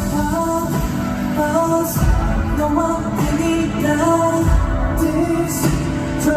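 K-pop dance track with singing, played loud: a repeating melody of short stepped notes over deep bass hits.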